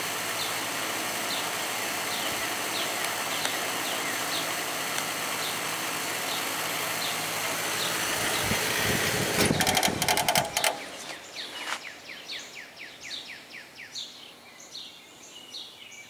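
Vintage Breezemaker box fan running on low speed, a steady rush of air. About ten seconds in there are a few clatters and the rush drops away sharply, leaving birds chirping in short repeated calls.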